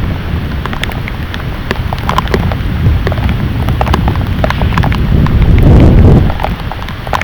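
Heavy thunderstorm rain pouring, with many individual drops striking hard close by. Under it a low rumble builds to its loudest about six seconds in, then dies away.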